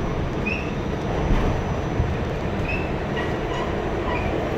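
New York City subway train running, heard from inside the car: a steady rumble of wheels on track, with a few brief high squeaks from the car.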